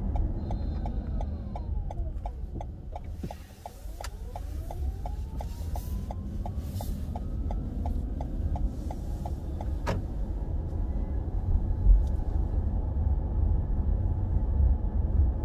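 Car driving on a residential street, heard inside the cabin as a steady low road and tyre rumble. A fast, even ticking, about four ticks a second, runs through the first nine seconds or so: the turn signal left on after the right turn.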